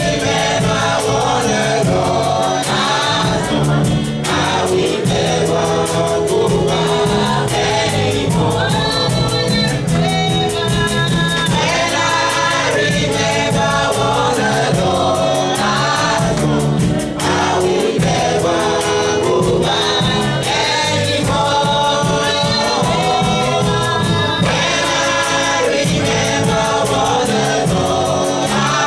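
Gospel worship song sung by a choir over a band, with steady loud accompaniment.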